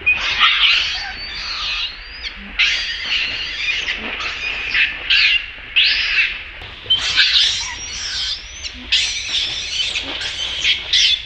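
Infant long-tailed macaque screaming in distress while an adult holds it down: a long series of loud, shrill screams with brief gaps between them, the pitch arching up and down within each scream.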